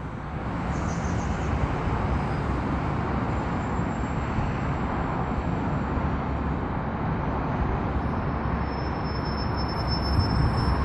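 Steady rushing outdoor background noise over a city at night, like distant traffic hum, strongest in the low end, with no distinct thunderclap.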